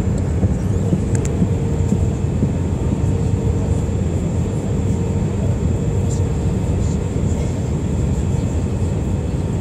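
Airbus A319 airliner cabin noise heard from a window seat over the wing on approach: a steady low rumble of engines and airflow, with a constant hum and a thin high whine running through it.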